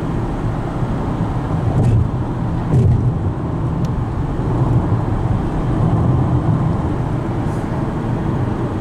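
Steady road noise heard inside a moving car's cabin at highway speed: a continuous low rumble of tyres and wind.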